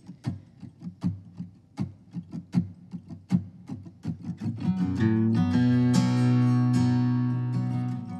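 Acoustic guitars playing an instrumental intro: short, sharp strokes about three a second, then about five seconds in the playing opens into full ringing strummed chords with sustained low notes underneath.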